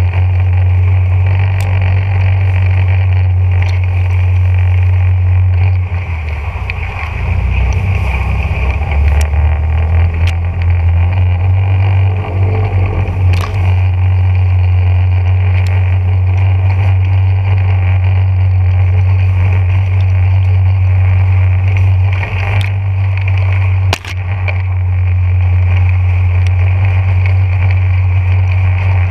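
Small boat's motor running steadily under load as the hull pushes up a narrow reed-lined ditch; the engine slows about six seconds in and picks back up a few seconds later. A few sharp knocks come through over the engine, the loudest a little before the end.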